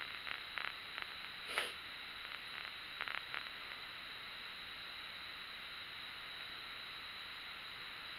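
Quiet room with a steady background hiss. A few faint clicks and one brief rustle come in the first few seconds; after that only the hiss remains.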